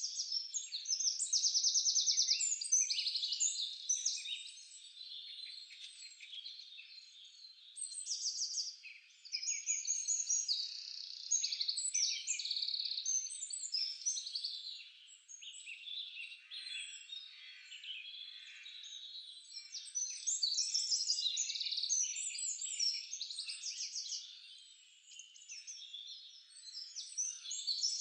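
A chorus of songbirds chirping and singing rapid trills, many calls overlapping without a break and swelling and fading every few seconds.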